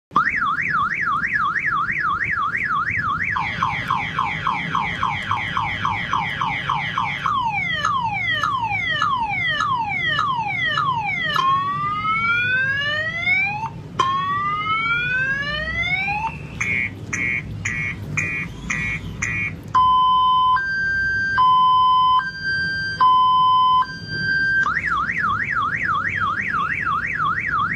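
Multi-tone car alarm siren cycling through its sound patterns. It runs a fast warble, then rapid falling chirps, slower falling sweeps, rising whoops, quick pulsed beeps and a steady alternating high-low tone, returning to the warble near the end.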